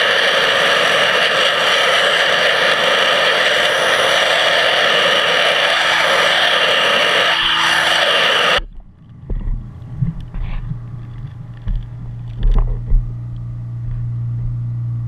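Pressure-washer nozzle jetting underwater: a loud, steady hiss that cuts off suddenly about eight and a half seconds in, leaving a low steady hum with scattered knocks and rumbles.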